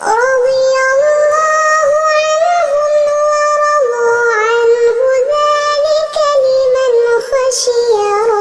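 A high voice reciting the Quran in a melodic, drawn-out tajweed style, holding long notes with ornamented turns and steps in pitch.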